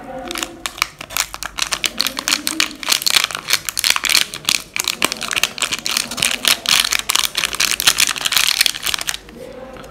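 An instant-tea sachet crinkling as fingers squeeze and shake it to pour out the powder. It makes a dense run of rapid crackles that dies away about a second before the end.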